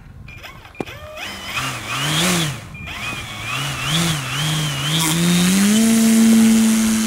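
The electric motor and propeller of an RC P-47 Thunderbolt warbird throttling up for a takeoff run on skis. The whine rises and falls several times in the first few seconds, then climbs and holds steady at high power near the end.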